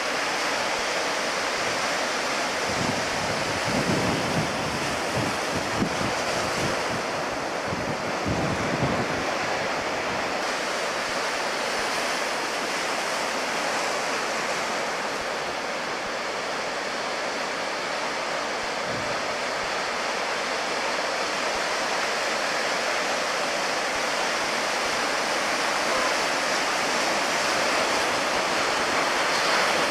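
Ocean surf breaking and washing in steadily, with low rumbles of wind on the microphone between about three and ten seconds in and once more near the middle.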